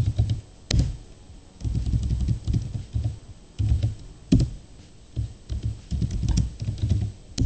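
Typing on a computer keyboard in short bursts of keystrokes with pauses between, and a few single key strikes louder and sharper than the rest.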